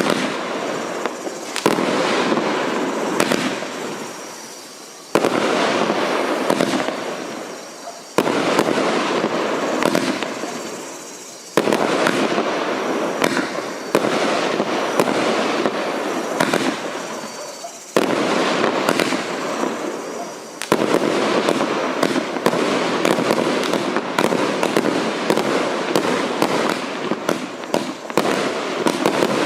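A 'Cassiopeia' consumer firework cake firing. A loud burst comes every few seconds, each followed by a long crackle that fades away. From about two-thirds of the way in, rapid crackles and pops run close together without a break.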